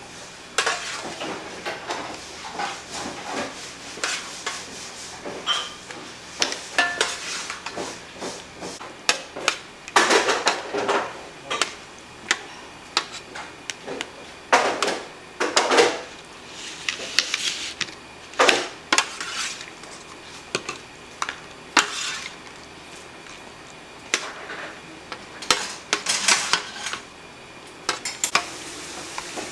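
Dishes, pots and metal utensils clattering and clinking in irregular bursts as food is handled and served, with a scattering of louder clanks.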